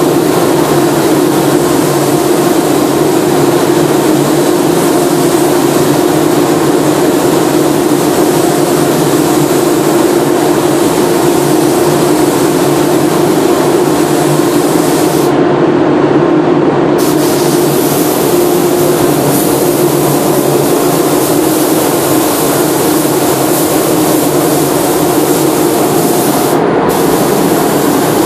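Steady hiss of a compressed-air paint spray gun over the constant hum of a paint booth's ventilation fans, as paint is sprayed onto car body panels.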